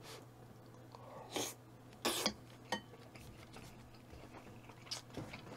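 Quiet eating sounds: a few short clinks of a spoon or chopsticks against a bowl, mixed with mouth noises, over a low steady hum.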